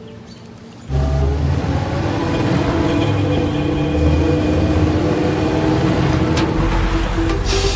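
City bus driving, its engine and road noise heard from inside the bus, coming in abruptly about a second in. Near the end there is a short burst of hiss.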